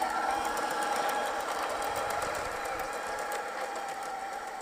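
Märklin gauge 1 model diesel locomotive running along the track: a steady electric-motor whine with a rapid patter of fine wheel clicks, slowly growing fainter.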